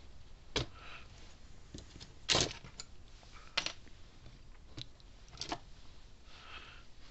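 A handful of separate clicks and clinks of hand tools and small metal parts being picked up and handled on a workbench. The loudest is a short clatter about two and a half seconds in.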